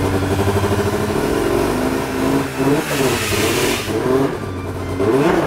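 Arctic Cat M7 snowmobile's two-stroke engine running at a steady idle, then revved in several short blips that rise and fall, about two and a half seconds in and once more near the end. The owners take its odd running for an ignition timing problem.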